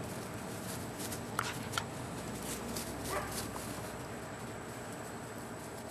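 Puppy giving two short yips in quick succession about a second and a half in, then a brief falling whine, during rag play.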